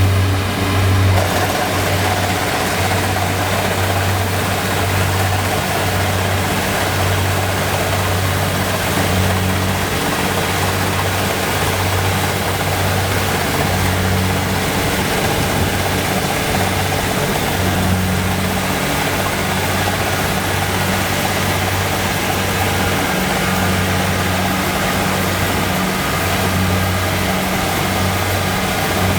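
Kubota DC70 combine harvester's diesel engine running steadily under working load: a constant low drone with a noisy mechanical din above it.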